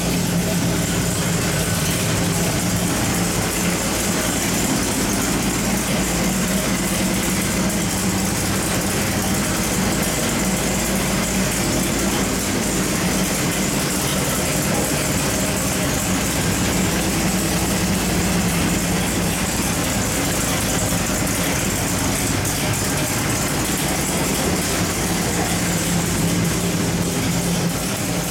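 A 540 cubic-inch carbureted V8 on an engine dyno, idling steadily at a constant speed with no rev sweep.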